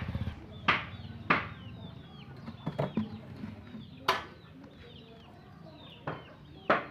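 Irregular sharp chopping knocks of a blade cutting cassava stems, about one every second or so, with birds chirping faintly in the background. A motorbike engine hums low for the first second.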